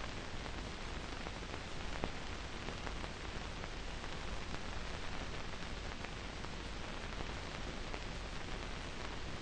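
Steady hiss of an old film soundtrack with no other sound, and a faint click about two seconds in.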